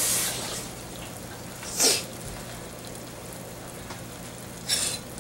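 Saucepan of water with onions and garlic simmering on a gas burner, a faint steady bubbling with a low hum under it. A short rushing noise about two seconds in, and another brief one near the end.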